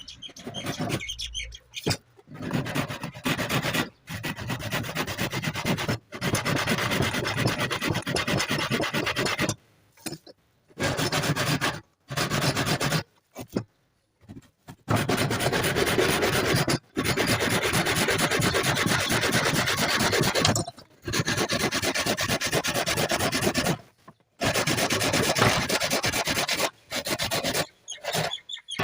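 A steel file rasping against a hand saw's steel teeth in long runs of rapid strokes, typical of sharpening a saw. The filing stops and restarts abruptly several times.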